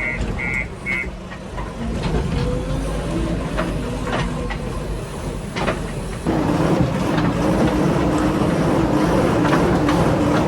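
Heavy diesel earthmoving machinery working, with a backhoe-loader engine running and scattered metal clanks. A few short, high repeated beeps sound in the first second. About six seconds in, the engine becomes suddenly louder and stays up under load.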